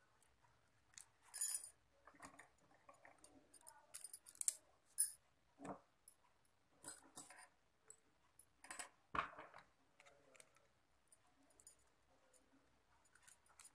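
A stack of bangles clinking and jingling against each other as they are slid onto a wrist and settled, in scattered clinks with soft hand rustling between.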